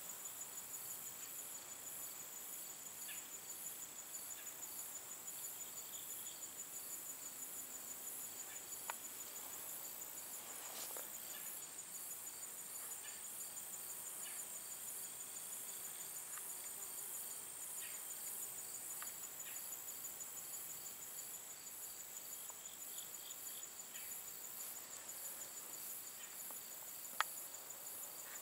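Chorus of singing insects such as crickets: a steady, high-pitched pulsed trill with a second, lower chirping rhythm under it. A few sharp clicks break in, the loudest near the end.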